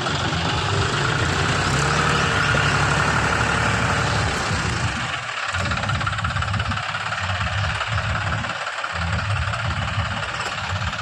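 Diesel tractor engine running steadily, a little louder in the first half, with two brief dips in its low rumble later on.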